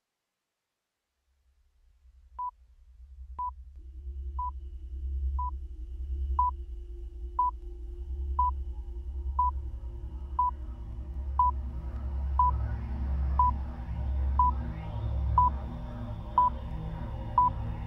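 Electronic sound-design interlude: after a moment of silence, a low pulsing drone fades in and swells while a short high beep sounds steadily once a second, like a sonar ping or monitor beep. From about twelve seconds in, further layers of tone and hiss thicken the texture.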